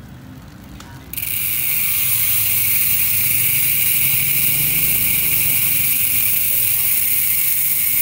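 ARC MT010 carbon rear hub freewheeling as the wheel spins, its freehub giving a steady, high-pitched buzz that starts suddenly about a second in.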